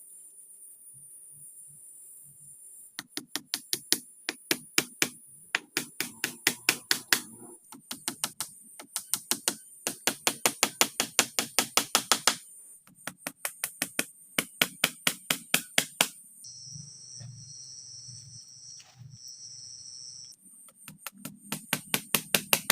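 Rapid runs of sharp knocks, about four a second, coming in bursts of a few seconds with short pauses between them.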